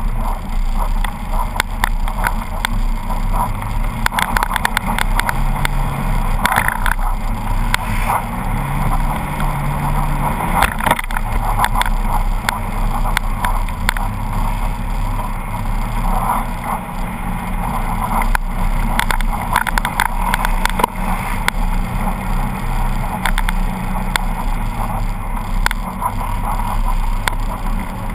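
Polaris RZR 800 side-by-side's engine heard on board while driving down a snowy track, its pitch stepping up and down with the throttle. Rattles and short knocks from the vehicle body run through it.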